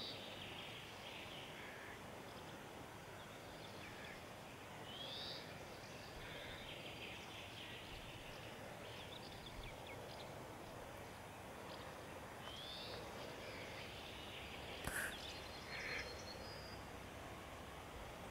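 Quiet outdoor ambience: a steady background hiss with a few short, rising bird chirps now and then, and two brief louder sounds near the end.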